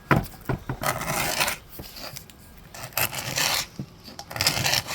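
A sharpened hand scraper blade scraping many layers of old paint off wood trim. A sharp knock as it starts, then three rasping strokes, the last near the end.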